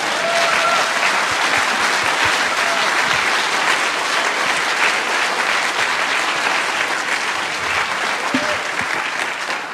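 Audience applauding at the end of a talk: dense, steady clapping that eases off a little near the end.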